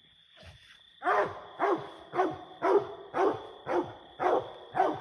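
Walker coonhound barking treed at a raccoon up the tree: a steady chop of about two barks a second, starting about a second in.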